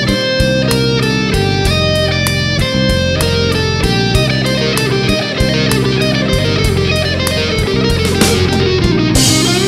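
Electric guitar, an Ibanez Jem7VWH, played through a Custom Audio Amplifiers 3+ SE tube preamp and recorded direct through a speaker-cabinet impulse response with Lexicon reverb, over a backing track with a steady beat. Sustained notes give way to bent lead notes near the end.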